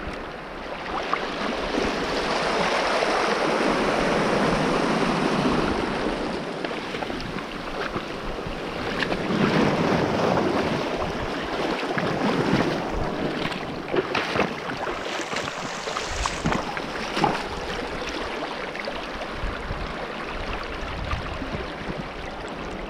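Small sea waves washing in over a shingle beach, the rush of water swelling and easing, with wind rumbling on the microphone and a few sharp clicks.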